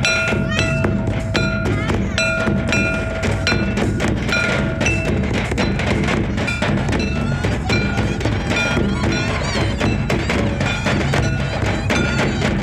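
Folk dance music played live on drums: a steady heavy drum beat under sharp, ringing strikes repeating about twice a second.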